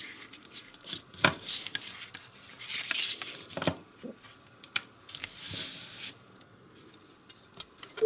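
Hands handling a thin plastic-sheathed power cord and its plug-in charger: rustling and rubbing of the cable, broken by several sharp clicks and taps of hard plastic.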